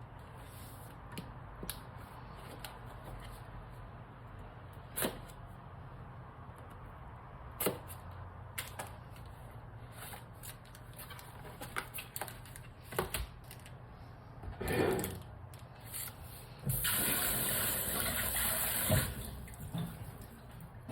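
Scattered small clicks and knocks of household handling, then water running hard from a tap for about two seconds near the end.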